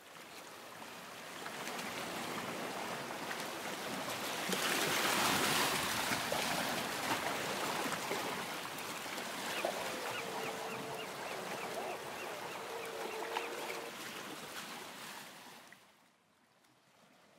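Ocean surf washing onto a beach, a steady hiss of waves that swells about five seconds in and fades out near the end. A bird calls with a rapid chattering note for a few seconds in the latter half.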